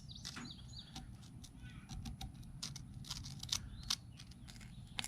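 Scattered faint clicks and light taps, with birds chirping faintly in the background.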